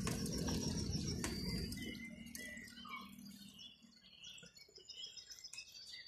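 Songbirds chirping and singing, many short calls overlapping, with a low rumble underneath that fades out about two seconds in.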